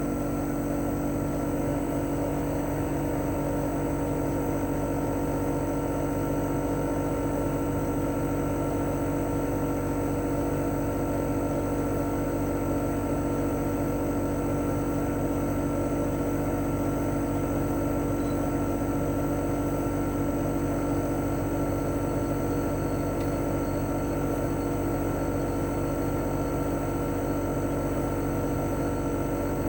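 CHOFU AE-2844PX air conditioner outdoor unit running in cooling mode: its GMCC KSK89D53UEZC single-rotary inverter compressor and propeller fan make a steady hum with several steady whining tones over it.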